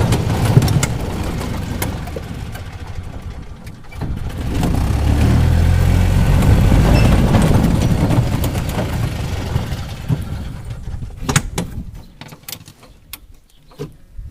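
John Deere 4230 tractor's six-cylinder diesel engine running just after start-up. It eases, picks up again about four seconds in, then dies away near the end, leaving a few sharp clicks.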